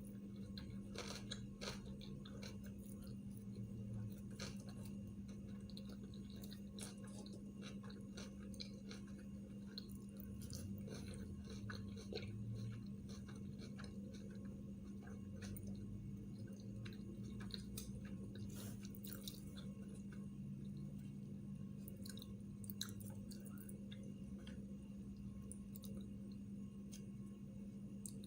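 A person chewing sushi rolls, with many small scattered mouth clicks. A steady low hum sits underneath.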